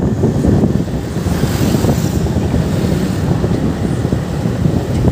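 Motorcycle running along a road at a steady pace, with engine and road rumble and wind on the microphone.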